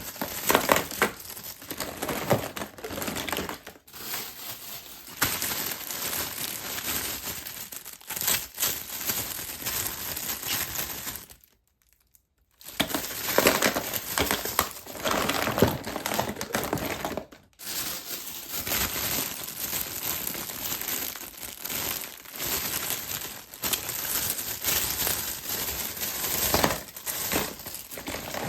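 Plastic and foil wrappers on surprise eggs and candy packs crinkling and tearing as they are unwrapped by hand, with frequent small sharp clicks. The crinkling stops for about a second near the middle.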